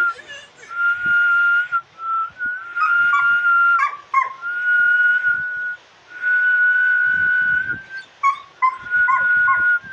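A person whistles a series of long held notes, each about a second, while a dog sings along with short rising and falling whines and howls.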